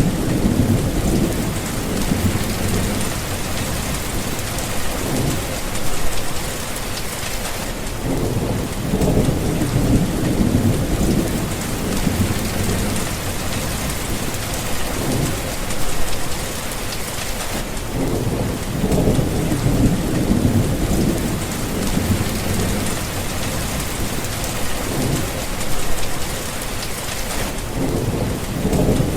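Thunderstorm: steady heavy rain hissing, with low rolling thunder swelling and fading again and again.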